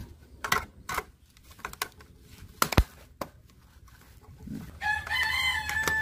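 Scattered plastic clicks and knocks as a wall-switch cover plate is fitted and snapped onto its box, the sharpest about three seconds in. About five seconds in, a long, wavering pitched call comes in behind for about a second and a half.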